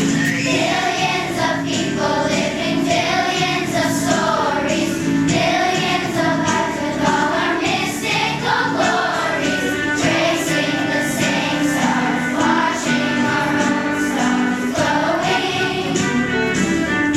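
Choir singing with instrumental accompaniment, the voices moving over steady held notes.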